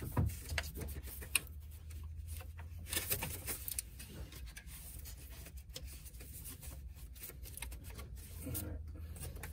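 Light rubbing, rustling and small clicks of a ribbed rubber A/C belt being worked by hand onto the A/C compressor pulley and the crankshaft pulley grooves, with one sharper click about a second and a half in, over a low steady hum.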